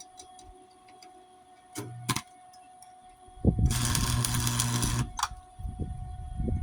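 Electric welder arc crackling and buzzing for about a second and a half, about halfway in: a tack weld on a steel patch plate over a cracked mower deck. Shorter crackles follow.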